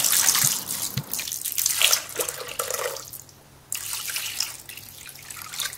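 Water poured in a steady stream into the metal bowl of a Moulinex Cuisine Companion food processor, splashing into the broth already in it. The pour breaks off briefly about three seconds in, then runs again.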